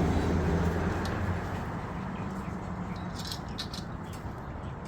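A passing vehicle's engine hum fading away over the first second and a half, then a few light clicks of small metal parts being handled about three seconds in.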